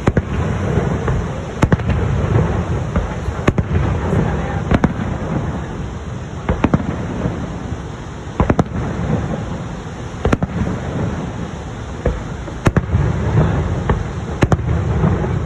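Aerial fireworks bursting: sharp bangs about every two seconds, some in quick pairs, over a steady low rumble.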